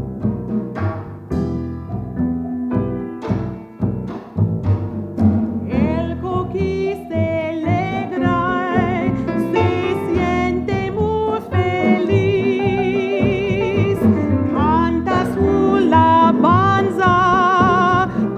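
Live Latin-jazz band with upright bass, piano and drum kit playing; the first few seconds are punctuated by sharp drum and cymbal hits. From about six seconds in, a woman sings long, wavering held notes over the band.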